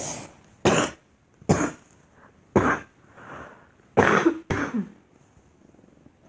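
A young woman coughing repeatedly: about six short, sharp coughs spread over five seconds, the last two close together, with a softer breath in the middle.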